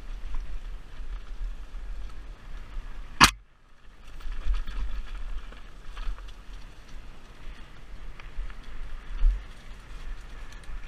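Mountain bike descending a rough dirt singletrack, heard through a helmet camera: a steady low rumble of wind and trail vibration on the microphone with faint rattles and ticks from the bike. About three seconds in there is one sharp loud knock, after which the sound briefly drops out.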